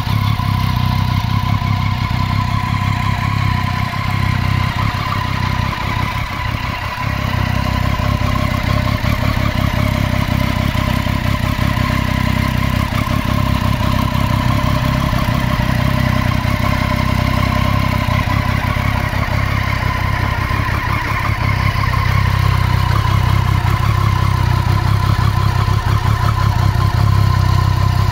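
Triumph Street Triple 675's three-cylinder engine idling steadily, a low rumble with a steady mechanical whine over it, growing a little louder near the end.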